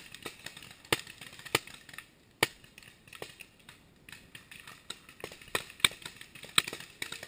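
Paintball markers firing in the distance: single sharp pops about a second apart at first, then a quicker flurry of shots from about five seconds in.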